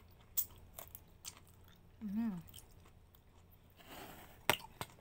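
Eating sounds: a person biting and chewing okra pods close to the microphone, with a few small crunchy clicks. A short hummed 'mm' comes about two seconds in, then a brief rustle and two sharp clicks near the end.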